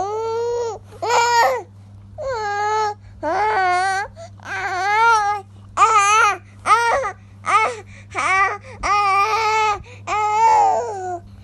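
Baby making a string of short, wavering vocal cries, about one a second, halfway between fussing and babbling. A faint steady low hum runs underneath.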